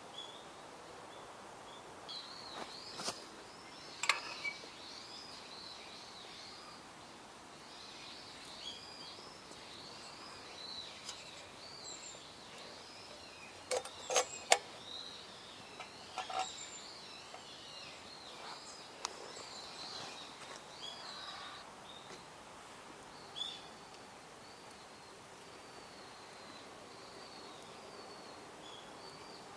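Small birds singing in quick, repeated arching chirps over a faint steady background. A few sharp clicks or knocks break in, the loudest about four seconds and fourteen seconds in.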